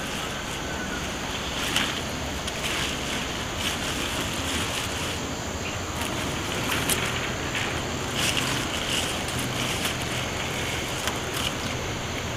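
A steady outdoor rush like wind, with short crisp rustles and snaps every second or two as napa cabbage heads are cut and their leaves handled.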